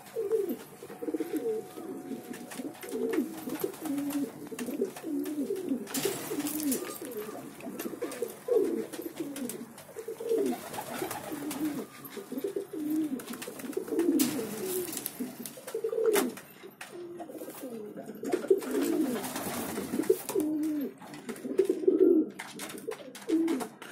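A flock of domestic pigeons cooing, many low coos overlapping without a break, with a few short rustling noises among them.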